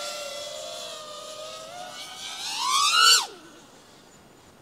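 FPV racing quadcopter's motors whining at part throttle. The whine climbs steeply in pitch as the throttle is punched just before 3 s in, then drops away suddenly as the throttle is cut, leaving only a faint hiss while the quad falls into a dive.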